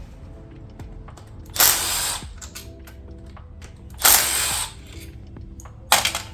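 A power tool run in three short spurts, backing out the 8 mm bolts that hold a 4L80E transmission's valve body. The second spurt is the longest and the third the shortest.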